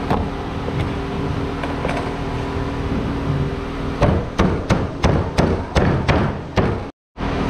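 A fist thumping a butterflied raw chicken flat on a plastic cutting board: about eight quick thuds starting about four seconds in, over a steady hum. The sound cuts out for a moment near the end.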